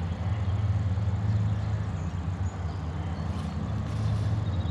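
A steady, low engine hum.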